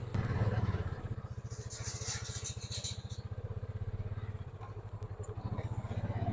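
Ranger utility vehicle's engine dropping to a fast, even chugging idle, with a brief high hiss about two seconds in, then picking up again near the end.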